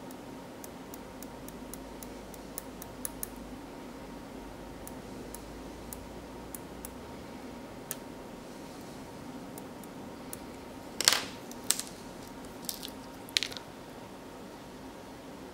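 Small clicks and ticks of a plastic spudger prying at a tiny part on an iPhone flex cable, lying on a desk. About two-thirds of the way through come a few louder knocks and crackles, the loudest sounds, as the tool is laid on the desk and the cable is handled.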